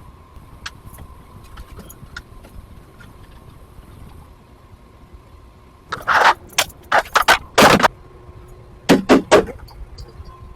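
A faint steady hum, broken about six seconds in by a quick run of loud, sharp clattering clicks, and by another short burst of clattering about three seconds later.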